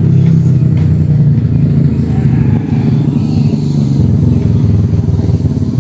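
An engine running steadily, heard as a loud, low hum with a slight waver.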